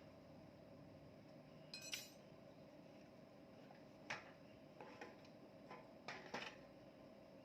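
Metal tools and engine parts clinking and tapping against each other, about six sharp clinks, with a cluster near the end. Faint steady hum underneath.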